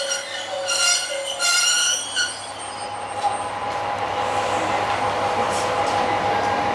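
Level-crossing warning bell ringing for the first two seconds, then stopping. Then the Kanto Railway KiHa 2400-series diesel railcar gives a steady high squeal with hiss as it comes to a halt, over the low hum of its engine.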